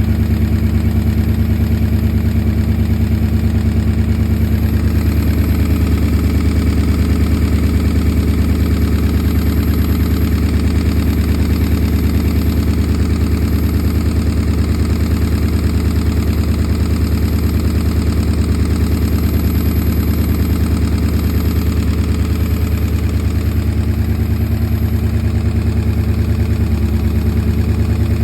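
Porsche Cayenne 955's 4.5-litre V8 idling steadily with a knock from the top end of the engine, which the owner traced to scored cylinder walls.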